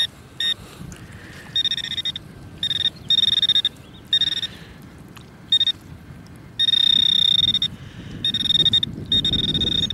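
Handheld metal-detecting pinpointer pushed into the soil, giving a high electronic alert tone in irregular beeps of varying length, with one longer unbroken tone about two-thirds of the way in: it is picking up a buried metal target close by. Soil scrapes low underneath.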